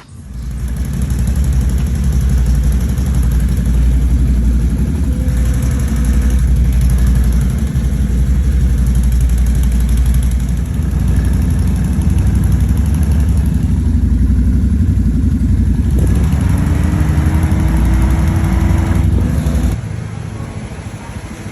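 Small vehicle engine running close and under way, with a heavy steady rumble and a brief rise in pitch near the end before the sound drops away.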